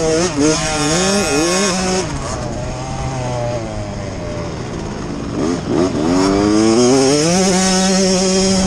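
Off-road motorcycle engine revving and easing off with the throttle, its pitch wavering up and down at first, then dropping and climbing again about six seconds in before holding steady near the end.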